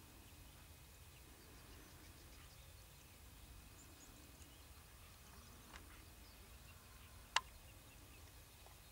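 Near silence: faint outdoor background with a low rumble, broken by one short, sharp click about seven seconds in and a softer click shortly before it.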